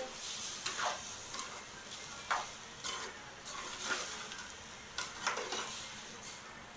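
Perforated metal spoon stirring raw rice through a tomato-onion masala in a metal kadai: a handful of sharp scrapes of the spoon against the pan over a faint sizzle, as the rice is briefly fried before pressure cooking.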